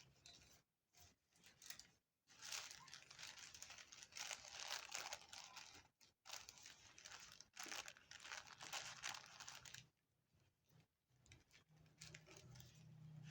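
Tissue paper rustling and crinkling as it is handled and folded by hand, in several stretches with short pauses between them.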